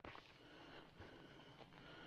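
Near silence: faint, steady outdoor background hiss.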